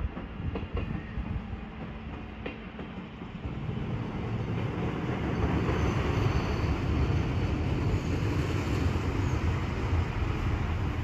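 Arriva LINT diesel railcar running along the station track: a steady low rumble of engine and wheels on rail that grows louder about four seconds in. A few clicks come early, and a faint high squeal follows in the middle.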